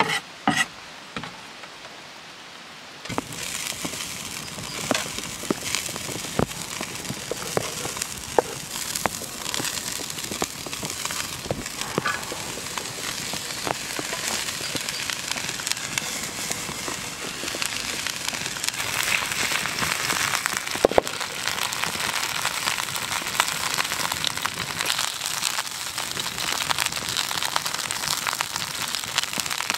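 A few knife chops on a wooden board, then diced bacon sizzling and popping in a pan over a wood fire, the sizzle growing louder about two-thirds of the way through as the fat renders out.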